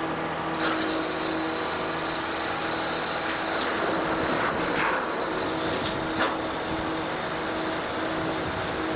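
A ferry's engine running steadily with a constant hum, and a few short metallic knocks, the sharpest about six seconds in.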